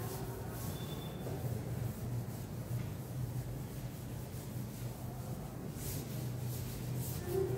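Felt chalkboard duster wiping across a chalkboard in faint rubbing strokes, more of them near the end, over a steady low hum.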